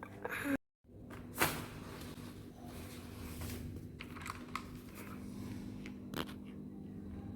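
Packaging being handled: soft rustling and crinkling with a few sharp clicks and knocks, the loudest about a second and a half in.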